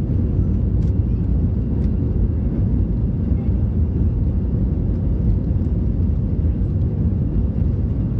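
Airbus A320 jet engines and airflow, a steady low rumble with no change in pitch.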